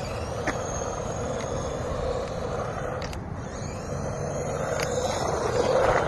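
A PHYWESS 1:16 scale 4x4 RC truck driving on concrete: its electric motor and gears give a high whine that rises and falls with the throttle, over the rumble of the tyres. It gets louder near the end as the truck comes close.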